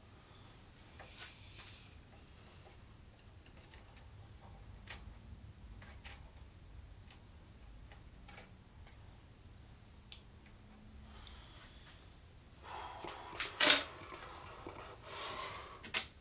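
Hand tools clicking and clinking on the motorcycle's metal parts while working at the battery and wiring: scattered faint clicks, then a flurry of louder clicks and handling noise from about twelve seconds in, the loudest click near the end.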